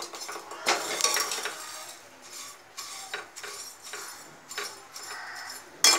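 Metal spatula scraping and stirring vermicelli in a kadai, knocking against the pan in irregular strokes, with a sharp knock near the end. The vermicelli is being fried lightly until it turns light brown.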